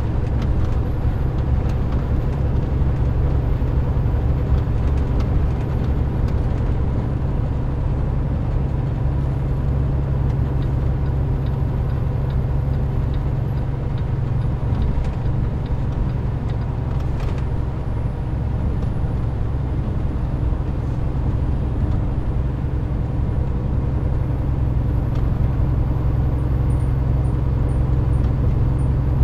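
Inside the cab of a moving semi-truck: a steady, loud low drone of the diesel engine and road noise, with a few faint clicks.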